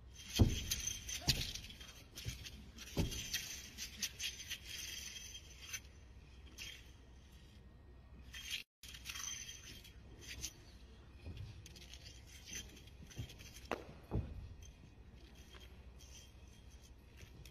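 A wushu spear routine: the athlete's feet stamp and land on the competition carpet in a few sharp thuds, the loudest right at the start, with lighter clicks and swishes of the spear and footwork between them.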